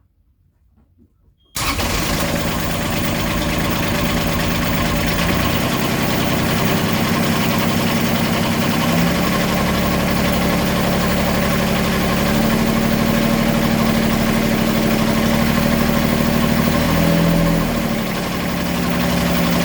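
Beta 25 hp marine diesel, a three-cylinder engine, starts abruptly about a second and a half in and runs steadily near idle, its speed shifting slightly a few times. This is the engine the owner is checking for a knocking sound at 700 hours.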